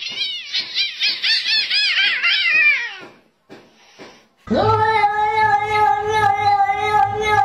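Cats yowling at each other in a standoff: a quick run of wavering yowls for about three seconds, a short hiss, then one long, steady, drawn-out yowl from about halfway in.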